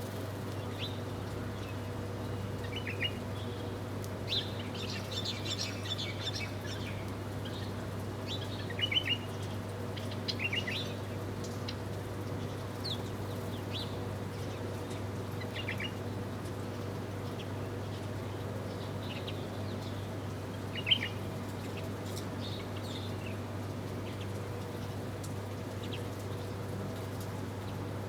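Small birds chirping in short, scattered calls, the loudest cluster about nine seconds in and one sharp chirp about twenty-one seconds in, over a steady low hum.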